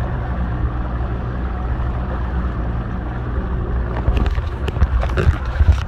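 Outboard motor running at a steady speed as a small boat moves over the water, with the rush of water and wind around it. From about four seconds in, irregular knocks and bumps join in.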